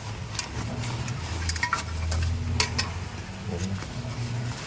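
Crinkling and rustling of a stove's black synthetic fabric carrying case as hands handle and fold it, with scattered sharp crackles.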